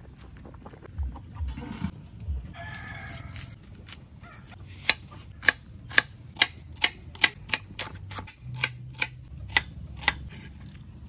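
A chef's knife chopping a red onion on a thick wooden chopping board: about a dozen sharp knocks, roughly two a second, starting about five seconds in. Earlier, about three seconds in, a rooster crows once in the background.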